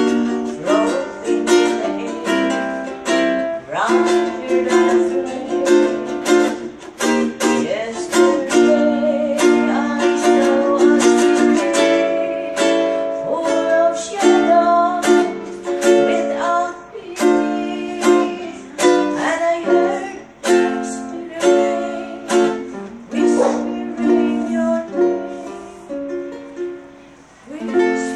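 Ukulele strummed in a steady rhythm, playing a chord progression.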